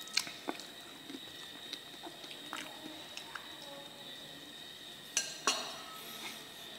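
Scattered light clinks and knocks of dishes and utensils at a table, with two sharper clinks about five seconds in, over a faint steady high-pitched tone.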